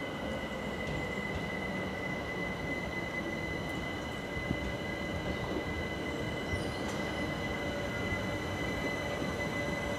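London Overground Class 378 electric train running slowly into the platform. A steady rumble comes from its wheels on the rails, under a steady high-pitched whine, and one tone falls slowly in pitch near the end as the train slows.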